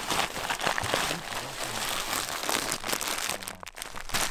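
A hand rummaging in a nylon stuff sack full of plastic-wrapped food: rustling and irregular crinkles of the fabric and packaging.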